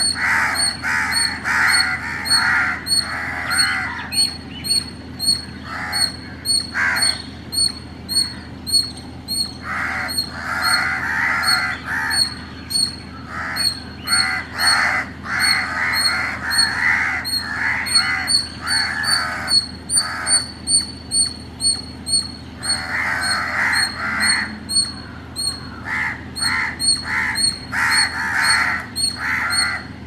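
Indian palm squirrel calling: sharp, repeated chirps about three a second, in long runs broken by short pauses.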